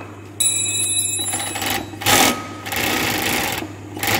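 Kansai Special DFB-1412 multi-needle sewing machine running in several short bursts, stopping and starting, with a high ringing tone during the first run. It is test-sewing fabric through a new waistband folder to check that the fold comes out even on both sides.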